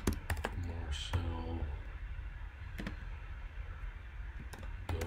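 Computer keyboard typing: irregular keystrokes as a short phrase is typed, in clusters near the start and the end, with a sparse gap in between.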